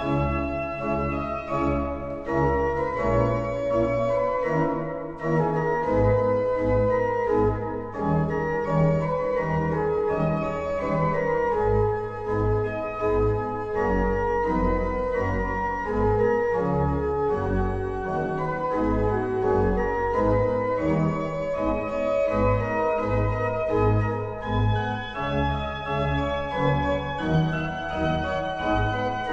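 Pipe organ playing: sustained chords with several moving voices over a strong low bass line.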